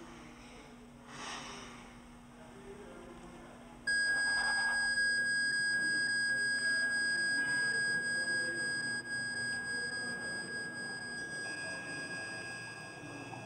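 A single steady high electronic tone, a heart monitor flatlining, cuts in suddenly about four seconds in and holds unbroken for about seven seconds before fading.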